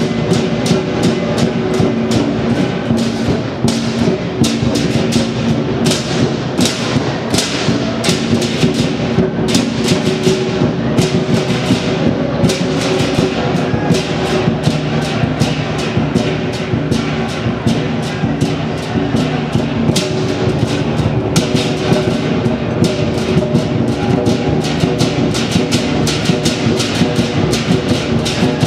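Live lion dance percussion: a large Chinese lion drum beating under cymbals clashing several times a second, with a steady ringing tone underneath.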